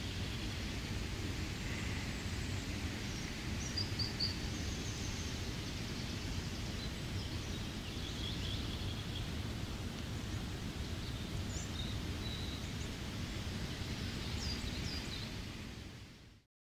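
Steady rain with forest birds chirping here and there over it, fading out in the last second.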